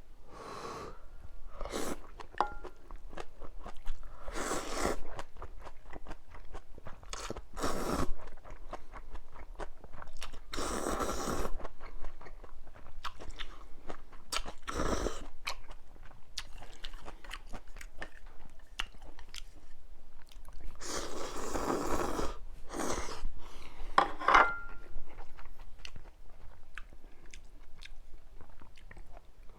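Close-miked eating of mala-flavoured instant ramyun: chewing and biting, with repeated louder noisy bursts of about a second each.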